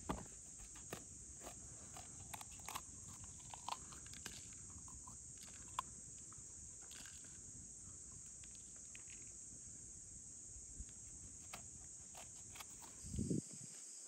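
Knife cutting and hollowing out fresh vegetables: scattered small crisp clicks and crunches, over a steady high insect drone. A louder clatter comes near the end.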